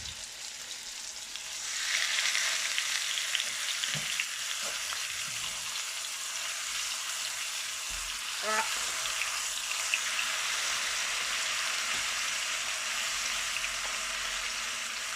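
Marinated chicken legs frying in hot oil and butter in a pan, a steady sizzle that gets louder about two seconds in, with a few light knocks.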